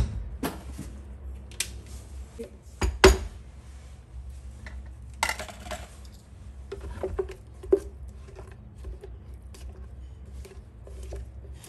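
Clinks and knocks of a plastic blender jar set down on a wooden cutting board, the loudest about three seconds in, followed by a spatula scraping blended sauce around inside the jar.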